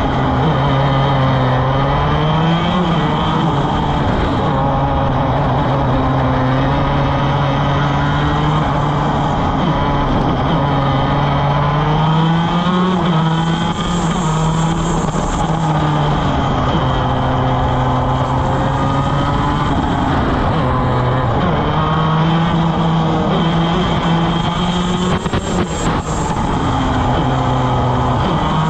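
Two-stroke shifter kart engine at race speed, heard onboard: the note climbs under acceleration and drops in steps through the gear changes and braking, over steady wind noise.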